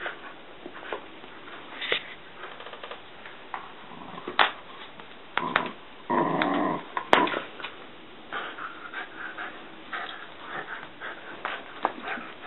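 Dog making play noises while tussling with a kitten over a toy, among scattered light clicks and knocks; one louder sound lasts most of a second about six seconds in, followed by a sharp click.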